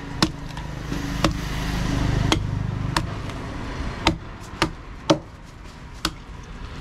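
A fish knife knocking against a wooden log chopping block while a snakehead fish is cut, about eight sharp knocks at uneven spacing, with a scraping hiss between them.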